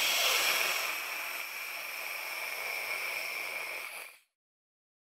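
Cymbals ringing out after the final hit of a rock band's song, a bright hiss slowly dying away until it cuts off to silence about four seconds in.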